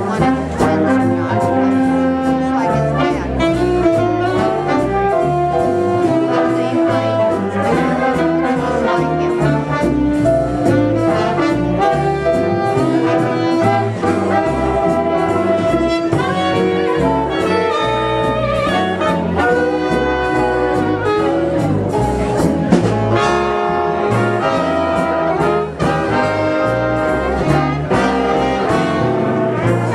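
Brass-led jazz music playing continuously, with a full band of horns.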